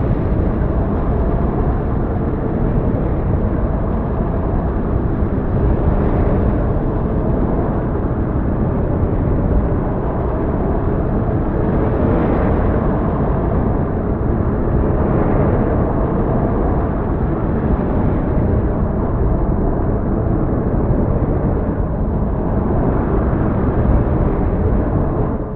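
A steady, deep rumbling roar from a natural-disaster sound effect, with no breaks, fading out just at the end.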